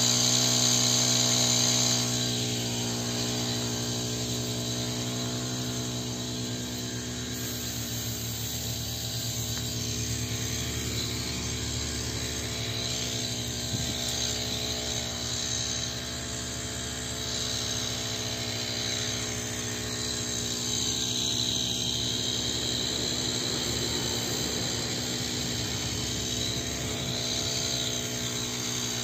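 Engine-driven orchard spray pump running steadily under load, an even mechanical drone with a constant pitch. It is a little louder in the first two seconds.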